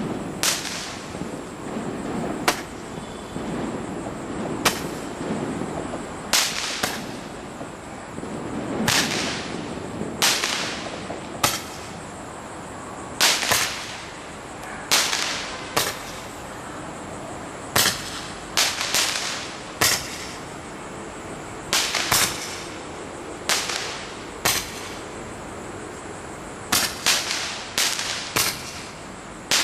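A multi-shot firework (a 40-ball 'magic shots' item) firing its shots one after another: each is a sharp pop with a short hissing tail. They come at uneven intervals of about one to two seconds, sometimes two in quick succession.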